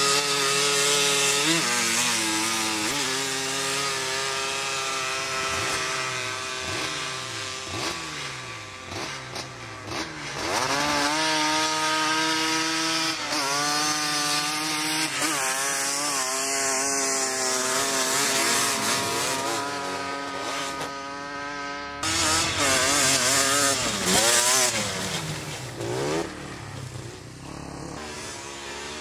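Snow quad's small engine revving, its pitch rising and falling again and again as it climbs and rides over snow, with an abrupt switch to another pass about three quarters of the way through.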